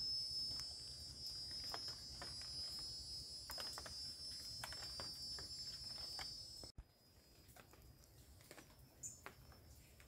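A steady, high-pitched insect chorus with scattered light ticks and rustles. It cuts out abruptly about two-thirds of the way through and carries on much fainter afterwards.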